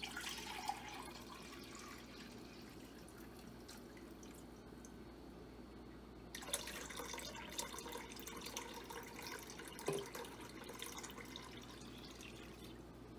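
Water poured from a pitcher into a glass measuring cup, a faint splashing at the start; then, about six seconds in, the cupful poured into a saucepan, faint splashing for a few seconds.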